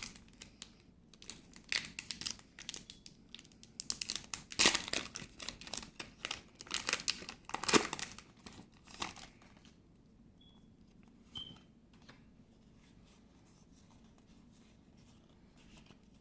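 Foil booster-pack wrapper crinkling and tearing as it is opened and handled, a dense run of crackles for about nine seconds, loudest in the middle, then dying away.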